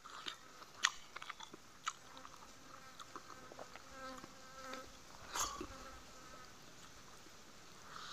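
Faint eating sounds: chewing, mouth clicks and fingers working rice and fish curry on a banana leaf. A buzzing insect, likely a fly, passes briefly about halfway through.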